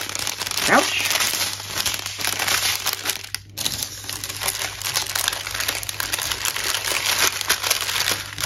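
Small zip-lock plastic bags of diamond-painting drills and rhinestones crinkling and crackling as they are handled and slid back into a clear plastic pouch, with a short break about three and a half seconds in.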